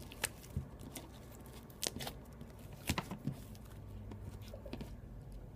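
Faint handling sounds of slime being pulled into pieces: soft rustling with a few light clicks and pops.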